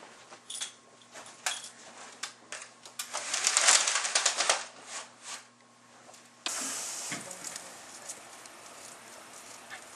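Scattered clicks and knocks, then a dense, loud clatter from about three seconds in that lasts around a second and a half. At about six and a half seconds the sound changes abruptly to a steady hiss with a few faint ticks.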